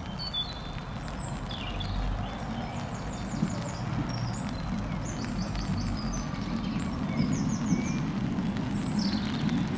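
Small songbirds singing in short repeated trills and chirps over the low rumble of a diesel locomotive, which grows gradually louder.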